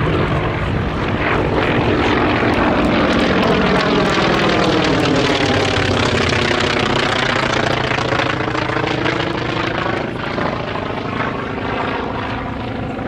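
Polikarpov I-16 fighter's radial engine droning in flight, its tone sweeping as the plane passes overhead and easing off slightly near the end.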